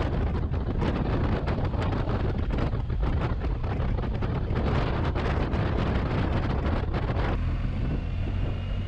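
A motorcycle on the move: wind buffeting the microphone over a steady engine rumble. About seven seconds in, the rush of wind drops off sharply, leaving mostly the lower engine and road rumble.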